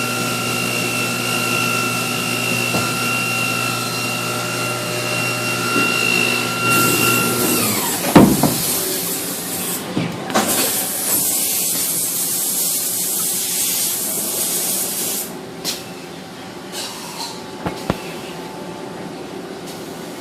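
Mazak Nexus 410A machining-center spindle spinning at about 7,258 rpm with a steady whine, then winding down with a falling pitch about eight seconds in. A loud hiss starts just before the spindle slows and stops about halfway through, followed by a few sharp clicks.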